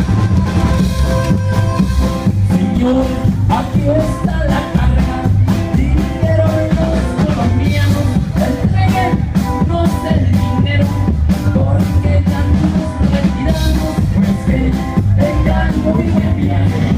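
A live band playing a corrido, with a man singing over electric guitar, heavy bass and a drum kit keeping a steady beat.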